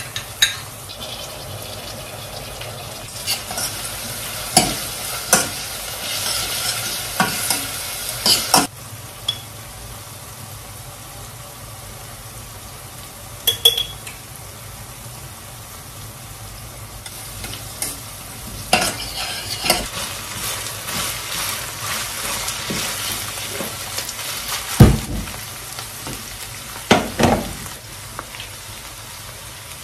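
Onions and minced meat frying in a non-stick pan, a steady sizzle, with scattered knocks and clatters of pots and utensils; the sharpest knock comes about 25 seconds in.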